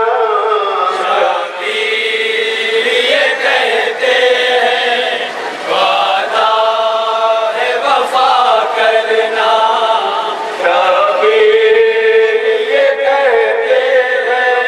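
A noha, a Shia mourning lament, chanted by a lead male voice into a microphone, with a group of men chanting along in long, held lines.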